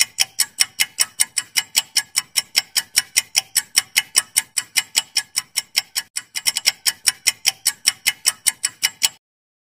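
Clock-ticking countdown timer sound effect: rapid, even ticks, about five a second, that stop abruptly about nine seconds in.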